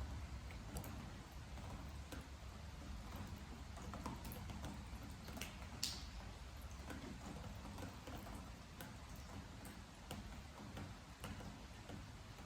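Rain at night with water drops falling from above and ticking irregularly on a wooden deck, over a faint steady patter. One sharper drop lands about six seconds in.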